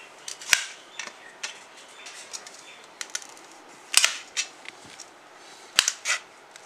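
Kitchen knife slicing a cucumber on a stainless steel plate: irregular sharp clicks as the blade cuts through and strikes the steel, the loudest about half a second in, at about four seconds and near the end.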